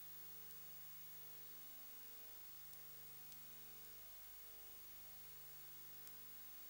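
Near silence: a faint steady electrical hum over hiss, with a few tiny clicks.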